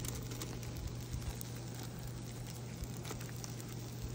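Burger patties faintly crackling and spitting as they cook on a foil-covered grill, over a steady low hum.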